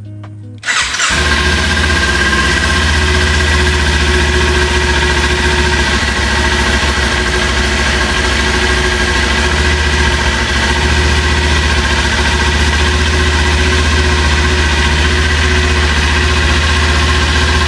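Kawasaki Ninja 400's parallel-twin engine catching about a second in, then idling steadily with no revving.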